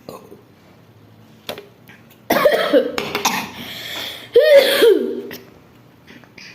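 A person burping loudly twice, each burp drawn out with a wavering pitch, the second following about two seconds after the first.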